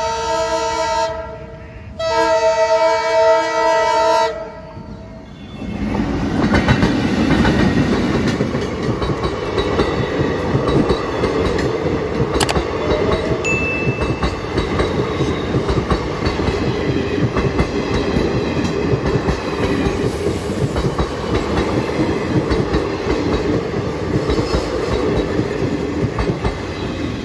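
Passenger train's horn sounds in two long blasts, the second ending about four seconds in. Shortly after, the train rolls past close by: a steady loud rumble of the coaches with wheels clacking over the rail joints.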